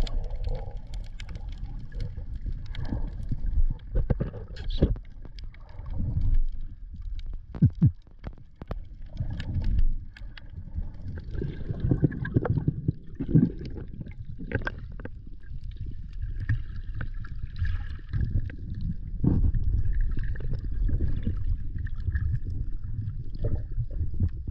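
Muffled underwater sound of a camera held under the sea: a continuous low water rumble and rushing, with scattered sharp clicks and knocks and bursts of bubbling.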